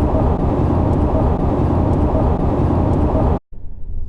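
Steady low road-and-engine rumble of a moving car, heard loud. It cuts off abruptly about three and a half seconds in, and a quieter rumble follows.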